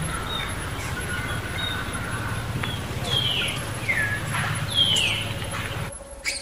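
Baby macaque crying: three high squeals a second or less apart, each sliding down in pitch, about three to five seconds in.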